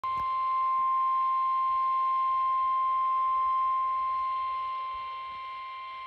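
Reecom weather alert radio sounding the NOAA Weather Radio warning alarm tone, a single steady 1050 Hz tone, through its small speaker. This is the alert that comes before a warning broadcast. The tone is unbroken and eases slightly in level after about four seconds.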